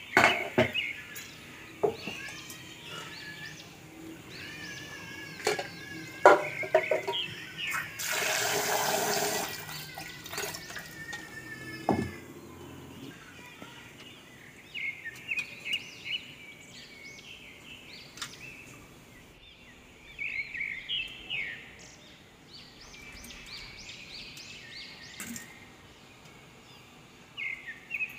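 Steel kitchen vessels knocking and clinking now and then, with a few seconds of running water about eight seconds in. Birds chirp in the background.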